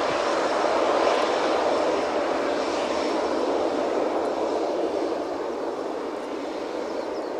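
A passing airliner's engines give a loud, steady rush. It is loudest about a second in and slowly fades as the aircraft moves away.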